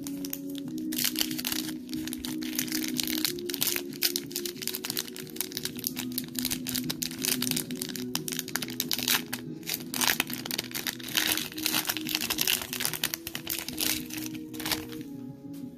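Foil wrapper of a Pokémon Unbroken Bonds booster pack crinkling steadily as it is handled and opened by hand, starting about a second in and stopping near the end. Background music plays underneath.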